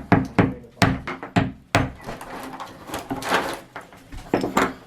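A series of sharp knocks and clicks of hard objects being tapped and handled, several in quick succession in the first two seconds and two more near the end.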